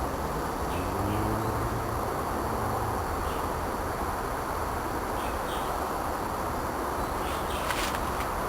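Steady outdoor background noise with a low hum, a vehicle passing faintly in the distance, and scattered faint bird chirps.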